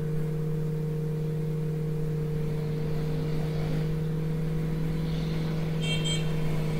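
Steady low background hum with two constant tones in it, from machinery or electrical equipment near the microphone. Two short high-pitched blips come in quick succession about six seconds in.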